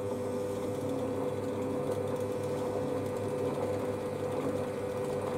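Warco metal lathe running steadily in reverse with the lead screw engaged, its motor and gear train giving an even mechanical hum as the carriage is driven back after a thread-cutting pass.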